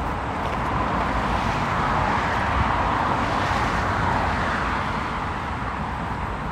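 Road traffic noise: tyre and engine sound from a passing car swells about a second in, peaks in the middle and fades away, over a steady background hum of traffic.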